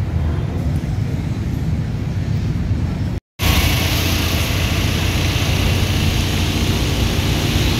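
Steady low background rumble. After an abrupt cut about three seconds in, louder steady engine and road noise from inside a moving vehicle takes over, with a hiss of wind over it.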